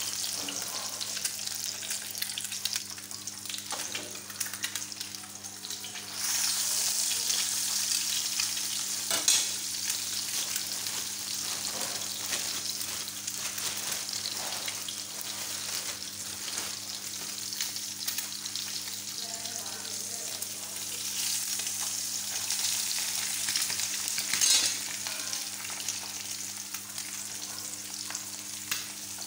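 Eggs frying in desi ghee in a frying pan: a steady sizzle with small crackles and spits, growing louder a few seconds in, with two sharper pops along the way.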